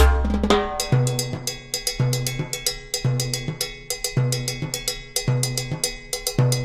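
Background music with a steady, percussion-heavy drum beat and a bass note about once a second; the beat turns lighter about a second in.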